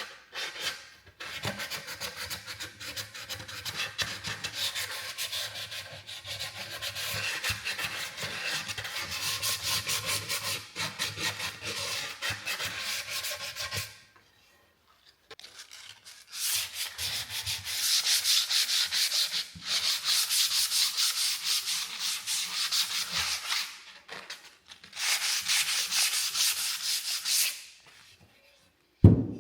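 Sandpaper being rubbed by hand over a wooden pizza peel, a scratchy back-and-forth hiss that pauses briefly and then goes on in several louder spells. A single knock near the end.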